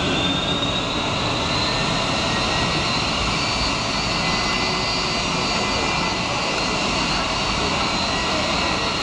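Boeing 757-200's jet engine spooling up after start: a whine rises in pitch over the first few seconds, then holds steady over the engine's constant rush.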